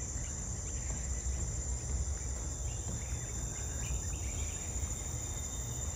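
A forest insect chorus, crickets or similar, making a steady high-pitched drone, with a low uneven rumble underneath.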